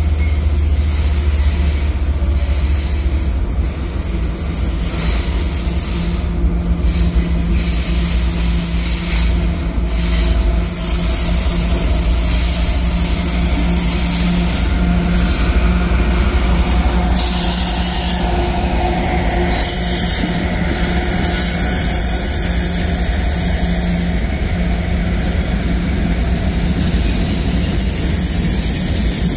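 Freight train passing close by. The lead CSX diesel locomotives rumble as they approach and go past. From a little past halfway, mixed freight cars roll by with steady wheel-on-rail noise.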